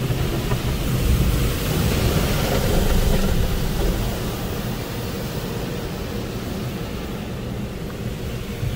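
Car wash tunnel air dryers blowing: a steady rushing roar of air that is loudest in the first few seconds and eases off after about four seconds.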